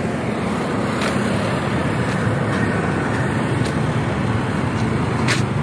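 Steady road traffic noise: the low rumble of vehicle engines, with a motor scooter going by. A few brief clicks come about a second in, near four seconds and near the end.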